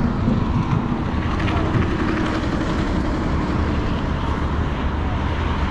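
Steady low rumble of vehicle engines and passing road traffic, with no distinct events.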